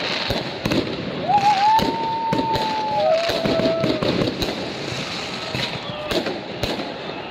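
Fireworks going off overhead, a rapid run of bangs and crackles over the hubbub of a crowd. About a second in, a held whistling tone starts; it drops lower partway through and stops around four seconds in.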